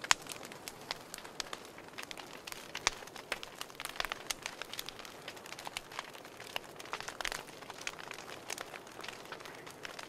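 Campfire crackling: irregular sharp pops and snaps over a soft hiss, with the sharpest pop right at the start and another about three seconds in.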